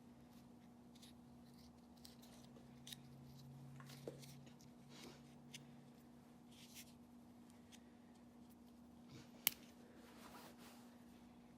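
Near silence: a low steady hum with faint scattered clicks and handling sounds, and one sharper click about nine and a half seconds in.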